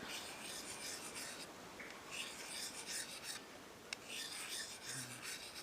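Knife blade rubbed back and forth on the diamond side of a Fällkniven DC4 pocket whetstone, faint rasping strokes in runs with short pauses, while the convex axe grind of a tracker knife is sharpened.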